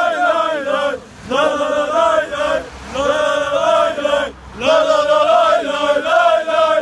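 A crowd of football supporters, mostly men, chanting a song in unison, in sung phrases broken by short breaths about a second in, near the middle and again a little later.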